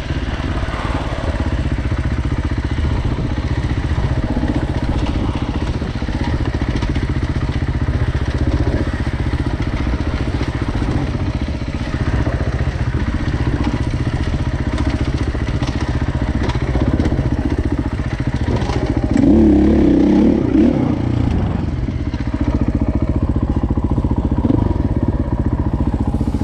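Off-road dirt bike engine running under changing throttle while the bike is ridden over rough trail, with a louder burst of revs about twenty seconds in.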